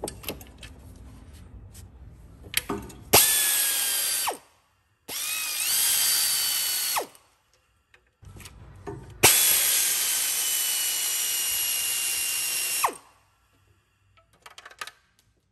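Pneumatic air ratchet run in three bursts to undo bolts: a high whine over a hiss, with the second burst rising in pitch and the last, longest one lasting about three and a half seconds. Light clicks and rattles come before the first burst.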